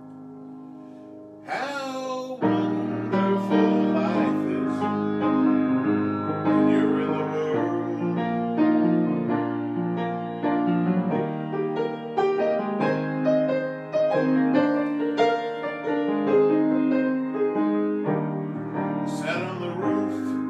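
Solo grand piano playing: a held chord fades, then a quick run up the keys about a second and a half in leads into full chords under a melody, with another quick run near the end.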